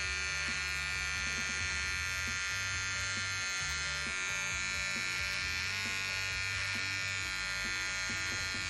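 Wahl cordless T-blade hair trimmer running with a steady buzz as it cuts a boy's hair around the ear and along the neckline.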